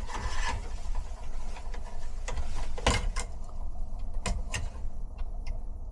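Gloved hands handling wires and connectors at an air handler's fan relay control board: rustling with a series of sharp clicks and knocks, most of them in the second half, over a steady low rumble.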